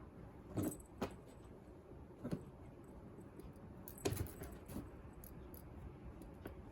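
A few light knocks and jingles, about five in all, the loudest about four seconds in, like small hard objects clattering together.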